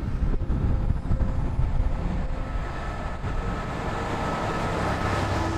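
GBRf Class 66 diesel-electric locomotive, with its EMD two-stroke diesel engine, approaching and passing close by with a train of hopper wagons. A low rumble grows steadier and fuller about halfway through as the locomotive draws level.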